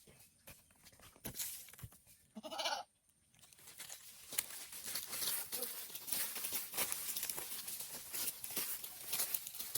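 A goat bleats once, briefly, about two and a half seconds in. From about four seconds in there is a steady run of crackling and rustling clicks.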